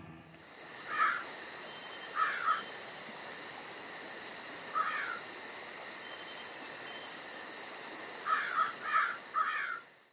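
Crows cawing outdoors, single caws spread out and then three in quick succession near the end, over a steady high chirring of insects.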